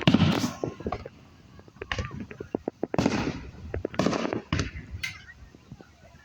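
Fireworks going off: a loud bang at the start, a patter of sharp crackles, then more bangs roughly a second apart.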